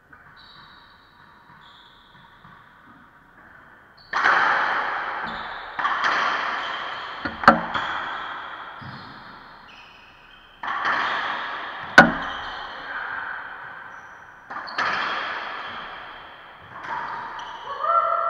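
Racquetball rally: the rubber ball cracking off racquets and the court walls, each hit ringing out in the court's long echo. It starts about four seconds in with about eight hits, the two loudest sharp cracks about halfway through and again a few seconds later, with sneakers squeaking on the hardwood floor between hits.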